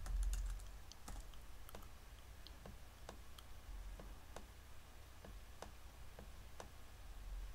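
Faint, scattered clicks of a computer keyboard and mouse, two or three a second, over a low steady hum.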